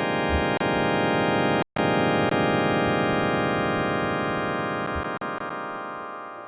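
Electronic sonification music: a sustained synthesizer tone, buzzy and rich in overtones. It cuts out for an instant just under two seconds in, then slowly fades, with a few faint ticks over it.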